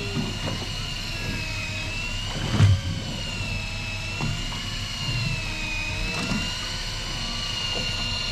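Electric fishing reel winding in line, a steady high whine wavering slowly up and down in pitch, over a low steady hum. A single knock about two and a half seconds in.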